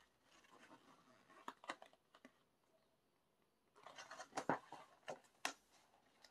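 Large glossy pages of a photo book being handled and turned: soft paper rustling with a few crisp snaps, in two bouts with a quiet gap of about a second and a half, the second bout louder.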